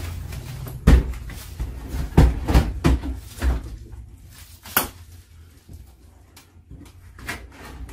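Knocks and bumps of a window air conditioner's plastic case being set into a window opening and pushed against the sill and frame. There are about half a dozen sharp knocks in the first five seconds, then quieter handling with a few small clicks.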